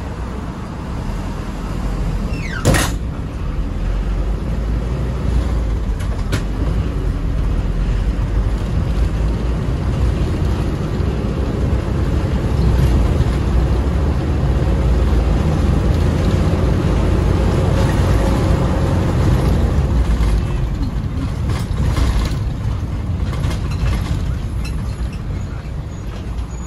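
Toyota Coaster minibus running, a steady low engine and road rumble that grows louder through the middle and eases near the end, with a sharp click about three seconds in.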